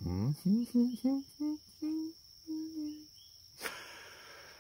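A man's voice humming a string of short notes that step upward in pitch, then a brief breathy hiss near the end. A steady high cricket chirr runs underneath.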